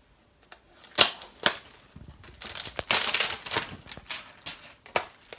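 Trading-card boxes and their packaging being handled: two sharp clicks, then a couple of seconds of crackling and rustling, and another click near the end.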